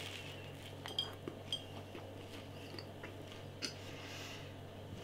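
Faint chewing of a mouthful of toast topped with chocolate sprinkles, with a handful of small clicks over a low steady hum.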